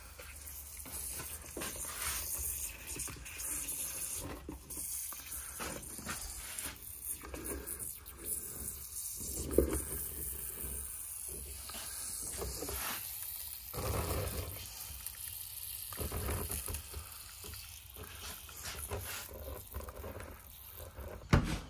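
Handheld pump sprayer spraying water onto a Jeep's door seams and windshield: a hiss of spray with scattered knocks, a sharp one about ten seconds in and another near the end.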